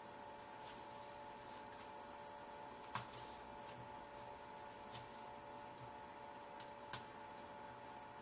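Long fingernails digging into a hard green apple: a handful of faint, sharp crunching clicks, the loudest about three seconds in, over a steady electrical hum.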